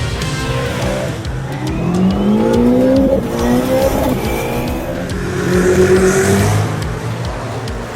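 Koenigsegg V8 engine revving hard as the car accelerates: the pitch rises twice in succession, then holds a steadier note.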